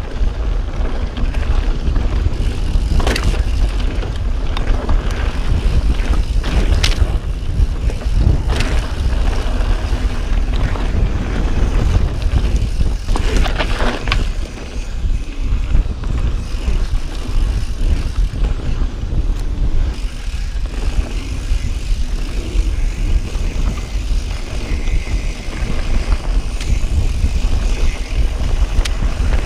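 A mountain bike riding fast down dirt singletrack: steady wind rumble on the microphone and tyre noise over the trail, broken by scattered sharp knocks and rattles from the bike, with a louder scraping clatter about halfway through.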